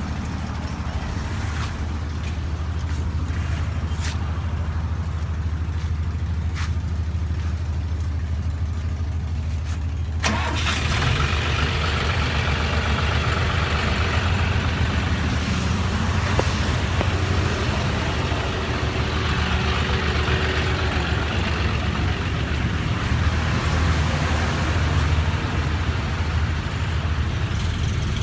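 John Deere tractor diesel engine running at idle with a steady low hum. About ten seconds in, the sound suddenly grows louder and fuller, and it then runs on steadily.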